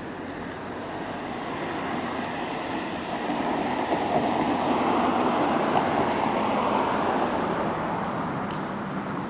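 A car driving past on the street, its tyre and road noise swelling to a peak about halfway through and then fading away.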